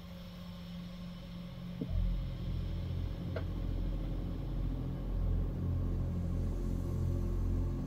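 A deep, low rumbling drone swells in about two seconds in and then holds steady, the kind of eerie ambient drone used as background music in ghost-hunting videos. A faint steady hum sits above it, with two faint clicks early on.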